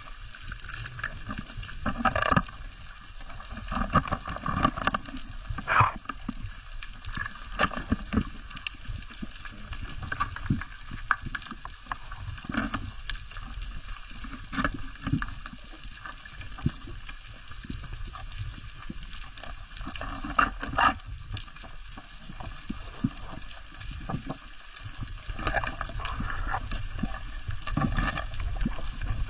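Underwater ambience on a rocky reef: a steady crackling made of many irregular small clicks. A few louder knocks and scrapes stand out above it.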